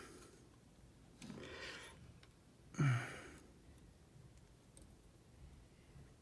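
A person breathes in and then lets out a short voiced sigh about three seconds in, with a few faint clicks.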